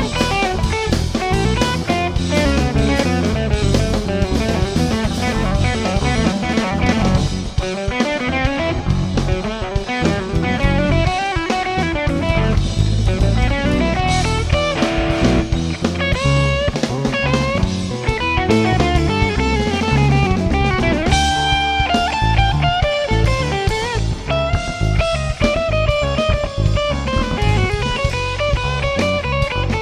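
Live jazz-fusion band playing: an electric guitar plays single-note melodic lines, with bent notes around the middle, over busy drum-kit playing and electric bass.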